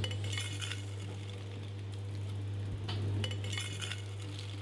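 Light clinking of cups or dishes in two short clusters about three seconds apart, over a steady low hum.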